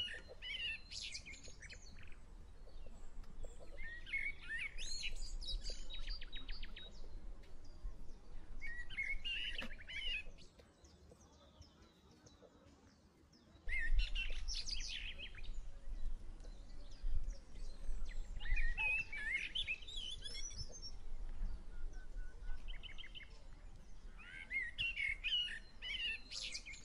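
Songbirds singing in short phrases of quick chirps every few seconds, over a steady low rumble that drops out for a few seconds near the middle and comes back suddenly.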